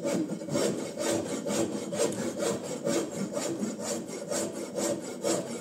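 Wood rasp being stroked back and forth over a walnut board, a rhythmic scraping of about four strokes a second as its coarse teeth cut the rough surface.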